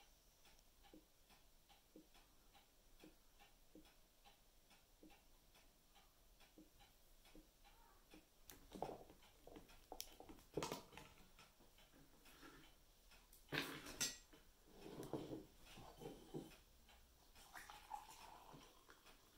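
Faint steady ticking about twice a second in a quiet kitchen. From about halfway, glass siphon coffee maker parts are handled with sharp knocks and clinks as the upper chamber is lifted off. Near the end, coffee is poured from the glass bulb into a stainless steel tumbler.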